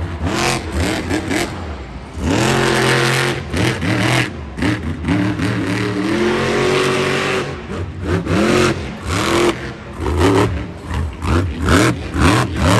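Monster truck's supercharged V8 engine revving hard, its pitch climbing and falling again and again, with a rapid string of throttle blips near the end.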